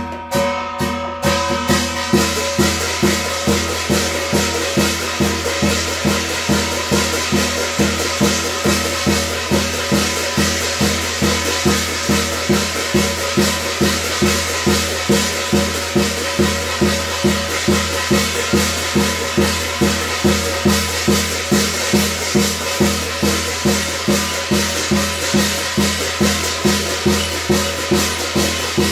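Korean shamanic gut ritual music: percussion beating a steady rhythm of about two strokes a second over a held low tone.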